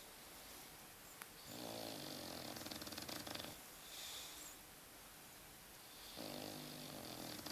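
Snoring: two long snores about four and a half seconds apart, each lasting about two seconds, with a soft hissing breath between them.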